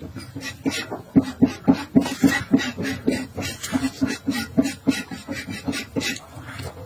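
Pedicure blade scraping hardened skin off a toe in quick, short strokes, about four a second.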